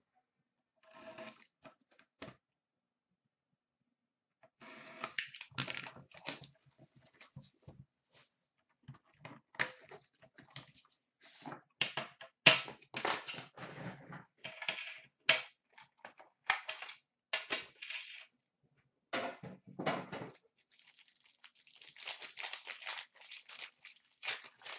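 Packaging of a hockey card box being torn and crinkled open by hand: irregular bursts of tearing, crinkling wrapper and rustling paper and cardboard, with a short lull a couple of seconds in.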